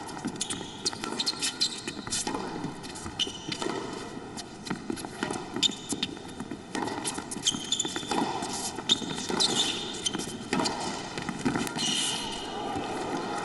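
Tennis rally on a hard court: repeated sharp racket strikes on the ball and ball bounces, irregularly spaced, over a low arena background.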